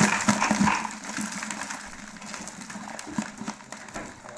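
Live crabs clicking and scraping their shells and legs against the sides of a metal pot as it is jostled: a dense rattle in the first second, then lighter scattered clicks.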